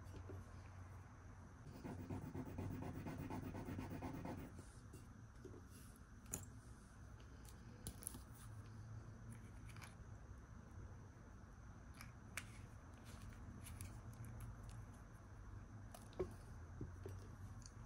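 A small silver earring scratched against a black acid-testing stone for about two and a half seconds, a faint rasping scrape. A few light clicks and taps follow as the testing acid is applied.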